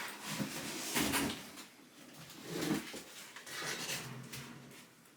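A drawer being pulled open and items inside being handled, heard as several separate scrapes and rattles.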